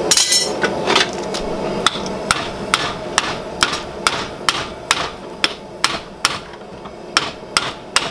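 Hand hammer striking a steel drift punch driven through a red-hot bar held in a bench vise: sharp metal-on-metal blows in a steady rhythm of a little over two a second. They are drifting out, or enlarging, a punched hole in the hot steel.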